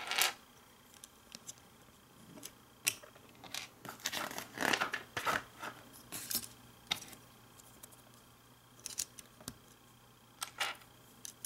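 Plastic LEGO bricks clicking and rattling as small pieces are pressed onto a model and handled. The clicks come singly, with a busier run of them about four to five seconds in.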